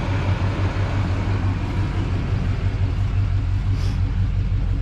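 Truck engine idling steadily, a low, even rumble.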